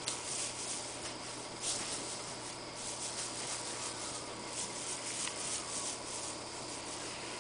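A ragdoll kitten's paws and claws scratching and rustling on a quilted fabric blanket as it crawls: a string of short, dry scratchy sounds over a steady low hiss, dying away near the end.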